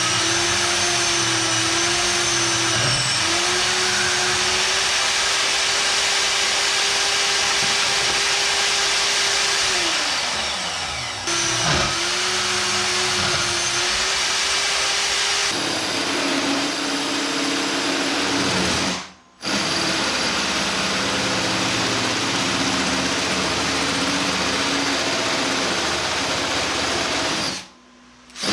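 Handheld electric power tool running under load, its motor whine sagging and recovering as it bites. It spins down about ten seconds in, starts again, and stops briefly twice later on.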